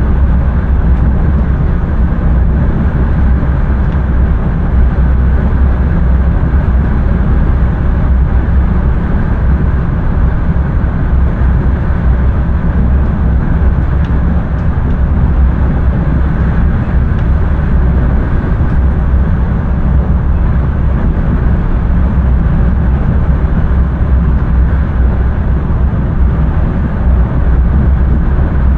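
Passenger train running along the line, heard inside the driver's cab: a steady, loud low rumble with no breaks.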